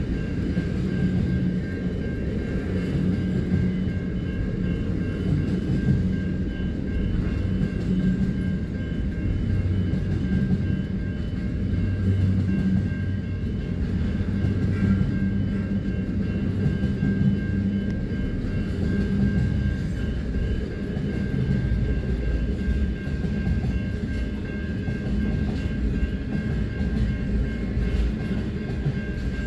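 Double-stacked container wagons of a Pacific National intermodal freight train rolling steadily past, a continuous low rumble of wheels on rail heard from inside a stopped car. The crossing's warning bell rings continuously over it as a steady high tone.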